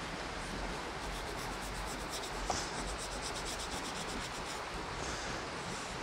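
A foam pad rubbed along orchid leaves, a run of quick, even wiping strokes through the middle with a single click about two and a half seconds in.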